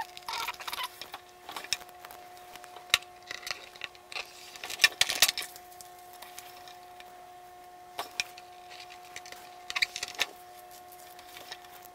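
A paper sticker sheet crinkling and rustling in short bursts, with scattered clicks and taps on hard plastic as decals are peeled off and pressed onto a toy aircraft carrier's deck. A faint steady hum runs underneath.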